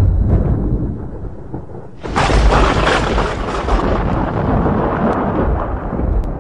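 Thunder: a deep rumble dies away over the first two seconds, then a sudden loud crash about two seconds in carries on as a rushing roll for several seconds.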